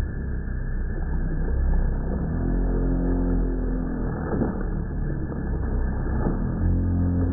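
Brushless electric radio-controlled speed boat on a 3S LiPo battery running in tight circles on the water, its motor note rising and falling along with the hull's spray.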